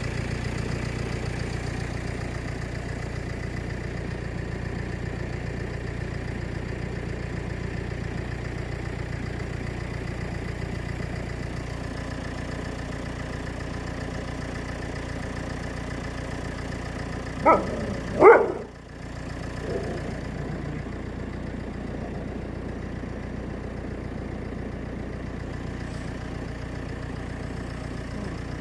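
A vehicle engine idling steadily, with two short dog barks close together about eighteen seconds in.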